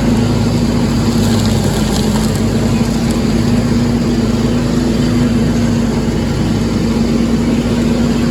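Tractor engine running steadily with an even, constant drone.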